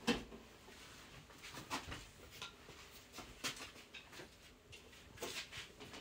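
Flat-screen TV being hung onto its wall bracket: a sharp click at the start, then scattered light knocks and scrapes as the set's casing is worked against the mount.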